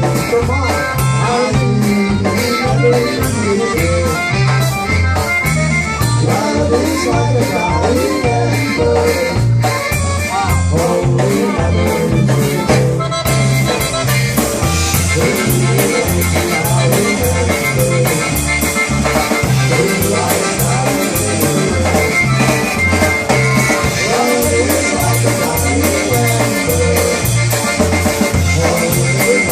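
Live polka band playing an instrumental passage, with accordion carrying the melody over drums and a steady bass line that alternates between two notes.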